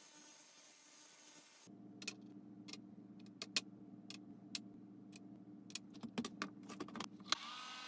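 Sharp, irregular clicks of small metal watch parts being set down on a clear plastic dryer tray and of the plastic trays and cover being fitted together, coming faster toward the end. Near the end the dryer's fan starts running with a steady hum and whine.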